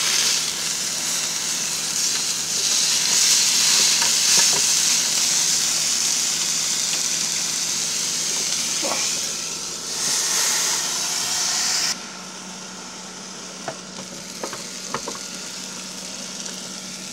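Venison steak, chopped onions and butter sizzling on a George Foreman electric grill plate. The sizzle is loud and steady, then drops off abruptly about twelve seconds in to a quieter sizzle with a few light clicks.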